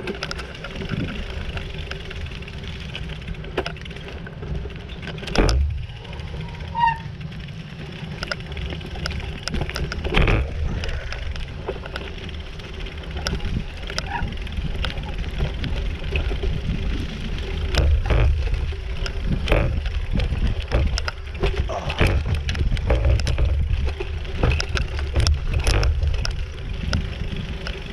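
Bicycle rolling down a rough dirt trail over roots: a steady rumble from the tyres with frequent knocks and rattles as the bike jolts over bumps.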